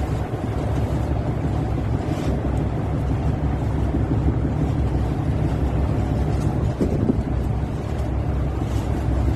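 Steady low rumble of a vessel's engines, heard from its open deck, with wind buffeting the microphone.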